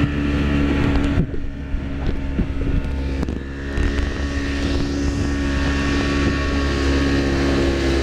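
Small motorboat's engine running steadily at speed, with wind buffeting the microphone.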